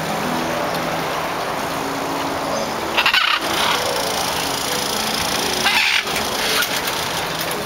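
Green macaw giving two short harsh squawks about three seconds apart, over a steady background rush.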